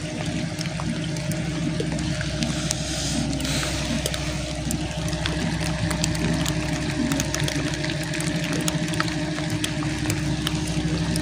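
Heavy rain pouring onto a river surface: a steady hiss dotted with countless individual drop splashes, heavier for a moment about three seconds in, with a steady low hum underneath.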